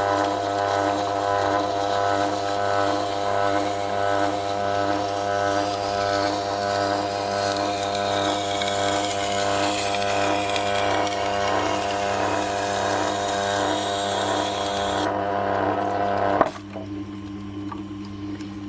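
Tormek T8 wet grinder humming steadily while a stainless chef knife's edge is ground on its SG250 stone, steel on stone making a hiss over the hum. Near the end the hiss stops, there is a click, and the grinder hums on alone, quieter.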